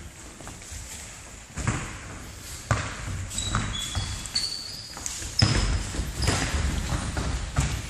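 A football being kicked and bouncing on a hard floor: about six sharp thuds at uneven intervals. Several short high squeaks come in the middle stretch.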